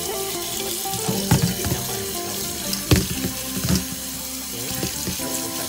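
Kitchen tap running into a stainless steel colander of shredded durian flowers in a sink while a hand stirs them under the stream, splashing. A few sharp knocks, the loudest about three seconds in.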